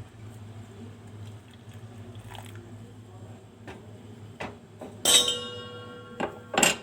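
Kitchen utensils clinking while hot kadha is strained into a cup. A sharp clink with a ringing tail comes about five seconds in, then two more knocks near the end, over faint small clicks and a low steady hum.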